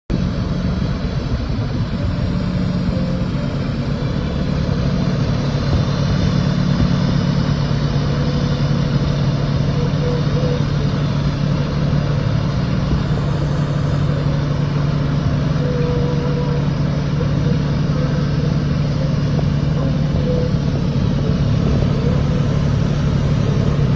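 Steady low machine drone with a hiss over it, at an even level, during TIG welding of a root pass.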